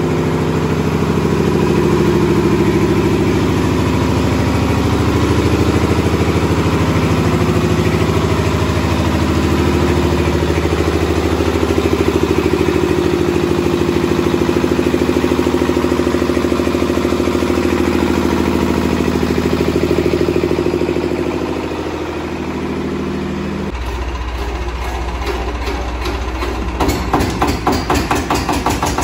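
Small single-cylinder stationary diesel engine running steadily. About three-quarters of the way through, the sound changes abruptly to a deeper drone, and near the end it turns to a fast, regular chugging of knocks.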